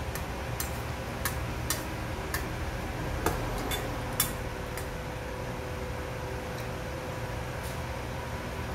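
Metal chopsticks clicking against a stainless steel bowl while jjajangmyeon noodles are stirred: about nine light clicks over the first five seconds, then only a steady background hum.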